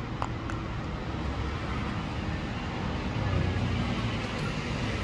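Steady low rumble of road traffic that swells briefly about three seconds in, with a couple of faint clicks near the start.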